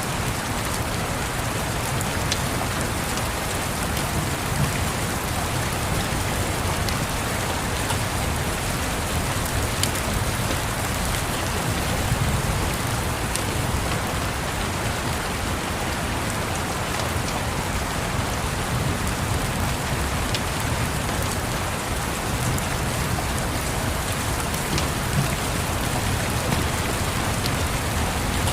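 Steady rain pattering, with scattered small crackles and pops of a wood fire over it.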